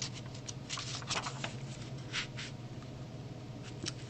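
Soft scattered rustles and light taps of paper: the pages of a small picture book being handled and turned, over a steady low hum.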